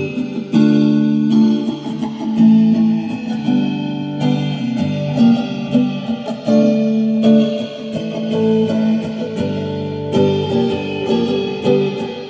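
Improvised guitar playing: plucked notes and strummed chords, with the chord or note changing every half second to a second.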